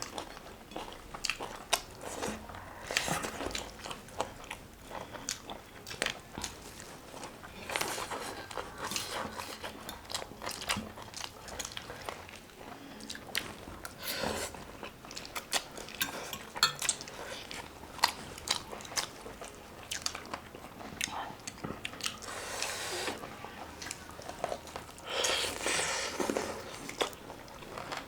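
Close-miked mouth sounds of a person eating roast chicken: steady chewing and biting with many small wet clicks and crunchy crackles. A denser, louder stretch of crunching comes near the end.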